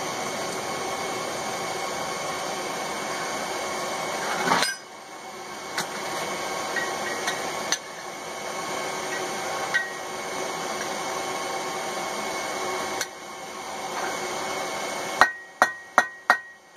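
Steady background hiss, then about five quick hammer blows in a row on steel at the anvil near the end, each with a short metallic ring: the tongs' rivet being struck to set it.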